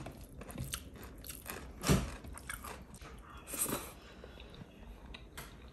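A person eating close to the microphone: quiet chewing, with two louder crunchy bites about two seconds in and near four seconds.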